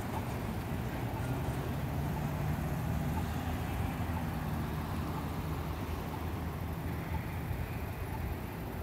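Low, steady rumble of cars and a van idling in a queue at a red light, with general road traffic noise.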